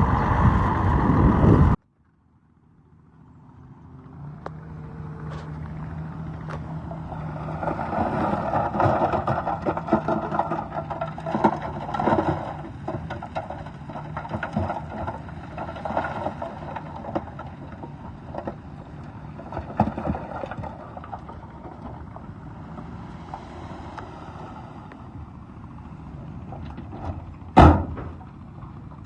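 Heavy earthmoving machinery at work: a diesel engine runs with a steady low hum under frequent scattered clanks and knocks. The sound cuts off abruptly about two seconds in and fades back in over the next few seconds, and there is one sharp loud bang near the end.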